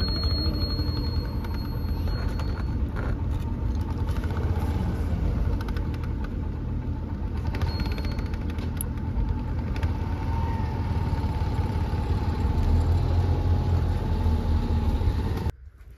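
Motor vehicle on the move: a steady low rumble of engine and road noise, cut off abruptly near the end.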